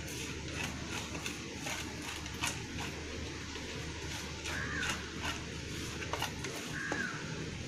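Metal spoon tapping and scraping on a chapati and plate while chutney and sauce are spread: light, irregular clicks over a steady low hum.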